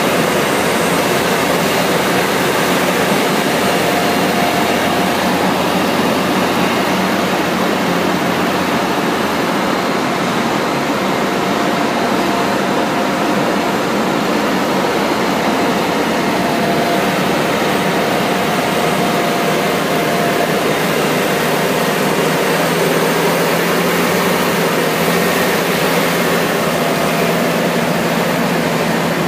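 John Deere 7780i self-propelled forage harvester running steadily: an even, loud machine drone with a faint whine that comes and goes.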